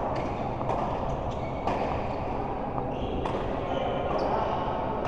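A badminton doubles rally: sharp racket-on-shuttle hits about once a second, with a short shoe squeak near the end.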